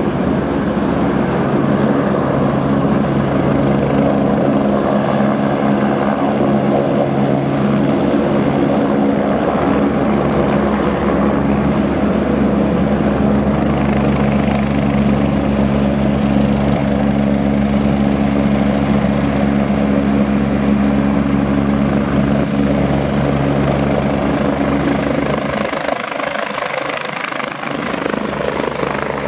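Agusta A109E Power twin-engine helicopter running with its main rotor turning as it taxis: a loud, steady mix of rotor beat and turbine roar. A thin high whine joins it about two-thirds of the way through, and the low end briefly thins out near the end.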